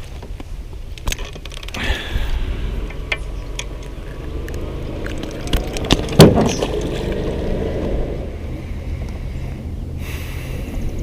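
Low, steady wind rumble on the microphone, with scattered clicks and knocks from handling gear in a small fishing boat and one loud thump about six seconds in.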